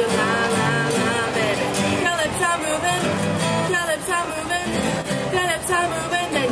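Several acoustic guitars strummed in a steady rhythm while a girl sings a pop melody into a microphone.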